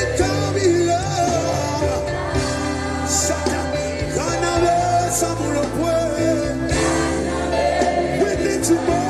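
Live gospel worship music: a voice singing over steady band accompaniment.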